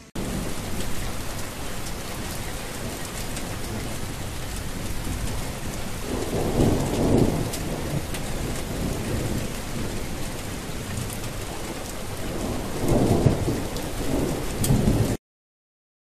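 Steady heavy rain with two low rolls of thunder, one about six seconds in and one about thirteen seconds in, then the sound cuts off abruptly near the end.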